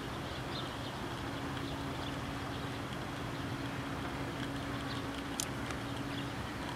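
Steady background hiss and low hum with a steady low tone, faint high chirps scattered through, and one sharp click about five and a half seconds in.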